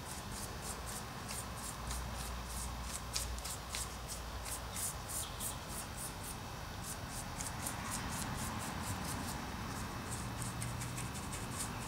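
Paintbrush bristles scratching green undercoat paint onto a model railway scenery base in a quick run of short strokes, several a second, pausing a little after halfway and again briefly near the end.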